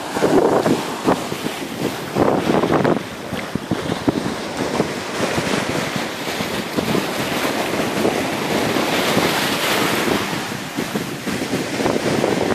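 Small waves breaking and washing over shallow rocks, with gusty wind buffeting the microphone.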